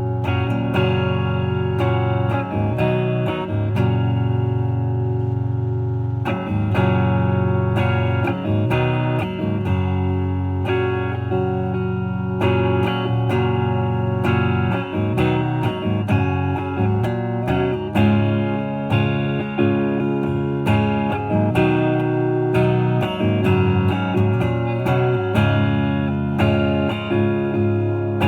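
Epiphone 1959 Les Paul Standard reissue electric guitar played clean on its neck pickup with all its knobs on 10, through an Orange Rocker 15 Terror amp into a 1x12 cab: a steady run of picked single notes and chords.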